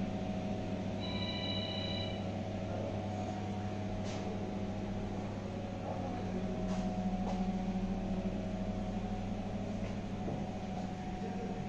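Steady low hum in a small room, with a short electronic tone lasting about a second, about a second in, and a few faint clicks.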